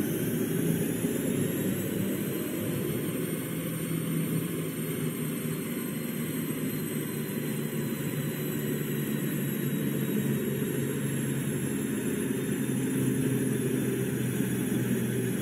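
Audi A7 45 TDI's 3.0-litre V6 turbodiesel running hard on a chassis dynamometer, with tyre and roller noise. A high whine rises over the first few seconds, then holds steady.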